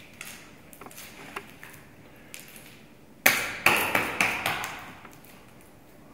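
A sculpting tool knocking and slapping against wet modelling clay, with a few light taps at first. About three seconds in come five sharp strikes within a second and a half, each echoing briefly in the room.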